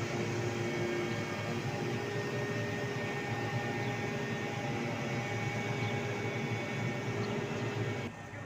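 A crane's engine running steadily, a constant mechanical drone with a few faint steady whines over it. It drops away abruptly near the end.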